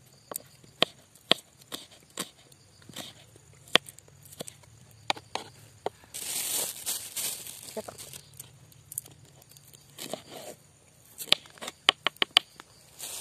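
Kitchen knife slicing shallots on a wooden cutting board: irregular sharp knocks as the blade hits the board, with a quick run of chops near the end. A rustle about six seconds in.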